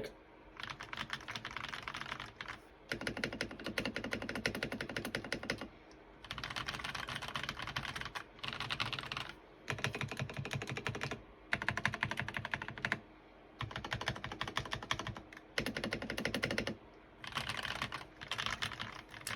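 Typing on an Eyooso Z-88 mechanical keyboard fitted with Akko CS Rose Red linear switches, tape modded: fast runs of keystrokes broken by short pauses.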